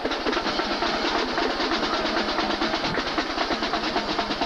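Marching band drumline playing a fast, steady drum cadence, with rapid even strokes throughout.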